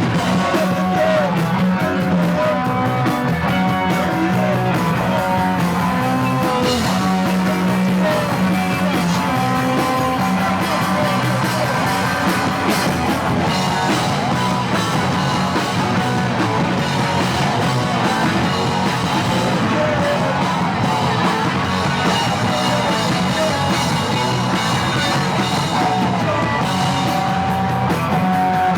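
A punk rock band playing live: electric guitar and drum kit with a singer, loud and unbroken.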